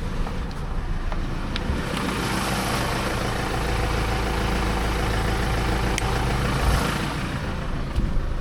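Fuso Canter 4x4 truck's diesel engine running in four-wheel drive as it sets off into a river crossing. A broad rushing noise swells from about two seconds in and fades by about seven seconds.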